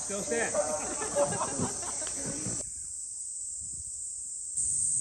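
Cicadas buzzing in a steady, high-pitched summer chorus, with voices over it in the first half. From about two and a half seconds in the chorus is heard alone, and it grows louder near the end.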